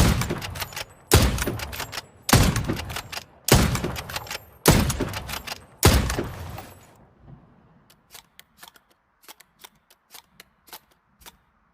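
Hunting rifle shots fired in a steady series, six shots about a second apart, each ringing out and dying away. Then come a few seconds of faint, irregular clicks.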